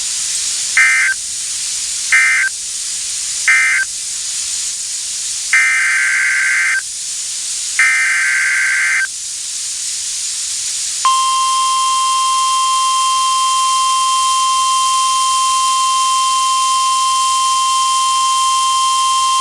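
Emergency Alert System data tones from a NOAA Weather Radio broadcast: three short warbling bursts of SAME end-of-message code closing the tornado warning, then two longer bursts of SAME header data for the next alert. About eleven seconds in comes the steady 1050 Hz weather-radio warning alarm tone, all over a constant radio hiss.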